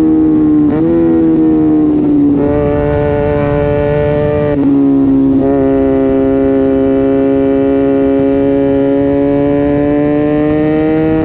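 Sport motorcycle engine running hard under way, its note dipping and jumping briefly at quick gear changes in the first five seconds, then climbing slowly as the bike pulls.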